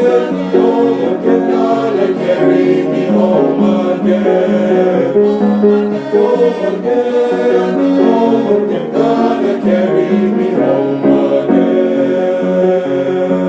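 A male high-school concert choir singing in harmony, with dense held chords and no break in the sound.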